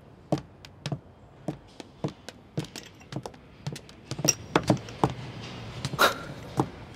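Footsteps of hard-soled shoes on a hard floor, a steady run of sharp taps about two a second that grows busier past the middle.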